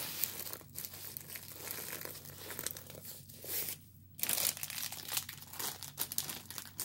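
Clear plastic sleeve and the canvas's plastic film crinkling and rustling as a rolled diamond painting canvas is handled and slid back into the sleeve, with a brief lull about four seconds in.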